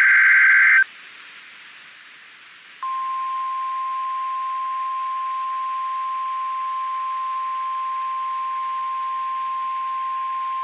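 NOAA Weather Radio emergency alert signal. The buzzing digital SAME header burst ends just under a second in, a couple of seconds of radio hiss follow, and then the steady single-pitch 1050 Hz warning alarm tone starts about three seconds in and holds.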